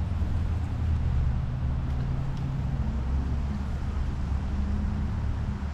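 A steady, low engine drone with a few held low tones over a background hiss.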